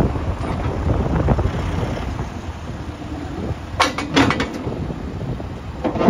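2019 John Deere 310L backhoe loader's diesel engine running steadily, with a few sharp metallic clanks about four seconds in and another right at the end.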